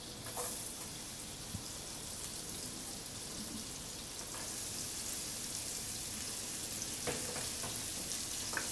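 Butter sizzling in a hot frying pan on a gas burner as diced onion and garlic are slid in. The sizzle grows a little louder about halfway, with a couple of light knocks near the end.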